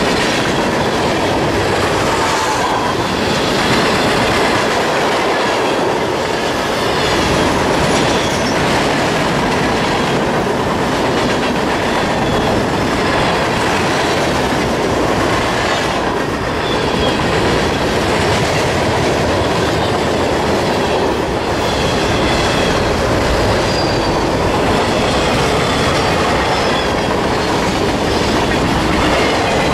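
Freight train of tank cars, hoppers, gondolas and flatcars rolling past: a steady rumble of steel wheels on rail, with clicking over the rail joints and short high wheel squeals now and then.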